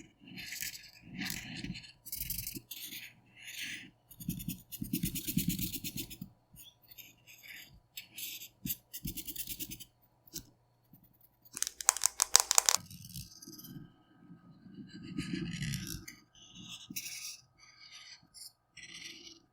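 Colouring strokes scratching on paper in short, repeated back-and-forth passes, with a louder burst of quick strokes about twelve seconds in.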